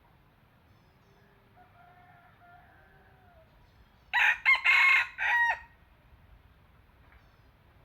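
Red junglefowl decoy cock crowing once, loud and short, in four clipped parts about four seconds in. Fainter, more distant crowing comes before it.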